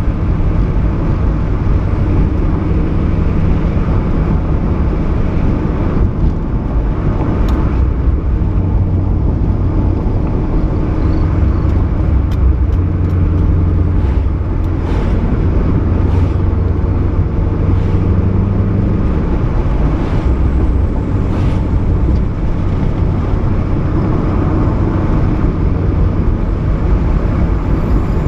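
Ford Mustang 5.0 V8 running through a Roush axle-back exhaust with an off-road X-pipe, holding a steady low engine note while driving. A scattering of sharp pops runs through the middle.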